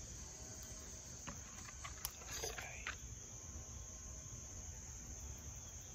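Steady, high-pitched chorus of crickets, with a few clicks and rustles of clothing and gear being handled close to the microphone about two seconds in.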